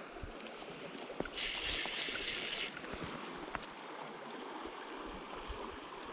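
Steady rush of river water, with wind noise on the microphone. About a second and a half in, a loud hiss lasts just over a second and then stops.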